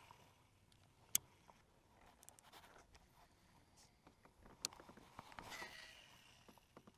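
Faint fishing-rod casting and reeling with a baitcasting reel: a sharp reel click about a second in, soft cranking ticks, then another click and the swish of a second cast near the end.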